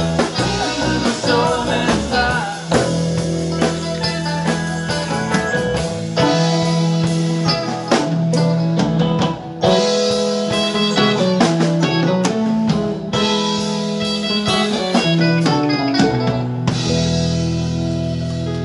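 Live rock band playing an instrumental passage, with electric guitars, keyboard and drum kit.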